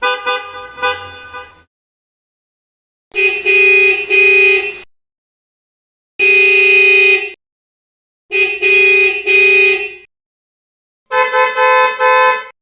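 Car horns honking in a string of separate clips cut apart by dead silence. First comes a burst of short stuttering honks, then two honks, one long held honk, two more honks, and about four quick beeps near the end.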